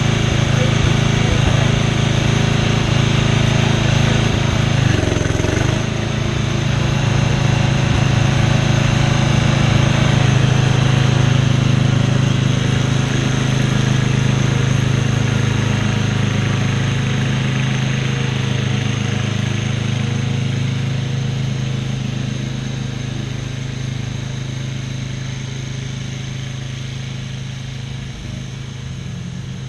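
1996 Craftsman lawn mower's engine running steadily, growing gradually quieter over the last third.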